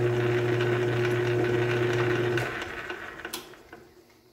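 South Bend 9A lathe running under motor power with a steady hum and gear noise; about two and a half seconds in the motor is switched off and the lathe, which has no brake, coasts down, the noise fading away. A single click comes partway through the run-down.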